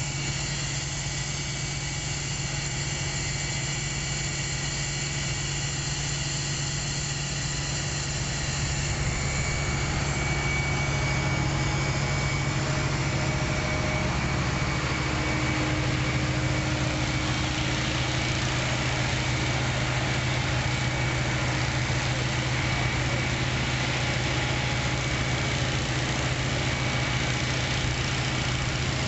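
Fire engine's aerial ladder truck engine running steadily, a steady low hum that grows a little louder and fuller about nine seconds in.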